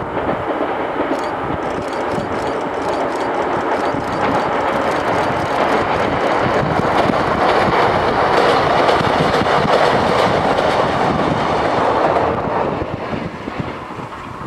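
Three-car Kotoden vintage electric train (cars 120, 500 and 300) running across a steel girder bridge, with wheel clatter over the rails. The sound grows louder as it approaches, is loudest as the cars pass, and falls away over the last couple of seconds.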